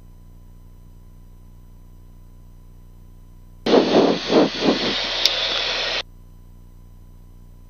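Aircraft radio squelch breaking open about three and a half seconds in: a loud burst of static hiss with a few rough pulses at its start, cutting off abruptly about two seconds later. Around it, only the faint steady hum of the intercom feed.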